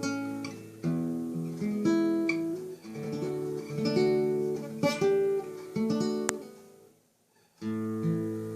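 Acoustic guitar played fingerstyle: plucked melody notes over ringing bass notes. About six and a half seconds in the notes die away to a second of near silence, then the playing starts again with a ringing chord.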